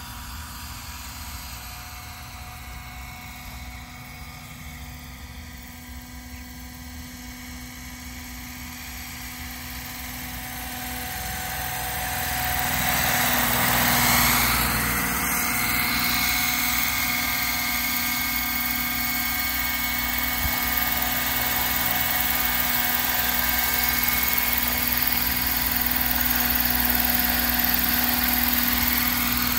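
Roban EC130 800-size electric scale RC helicopter flying, its motor and rotor giving a steady whine that grows louder as it comes close about halfway through, with a short rush of rotor wash at its nearest, then stays loud and steady as it hovers low.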